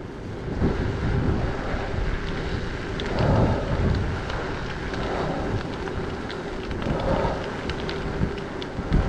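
Wind buffeting the microphone of a camera on a moving mountain bike, a steady rushing rumble that swells in gusts, over the rolling noise of the bike's tyres on asphalt, with scattered faint ticks.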